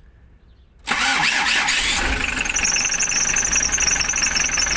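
A freshly rebuilt diesel engine started from cold: it catches about a second in and settles into steady running, with a high steady whistle coming in after a couple of seconds. The mechanic's complaint is that the rebuilt engine shakes at idle and whistles a little.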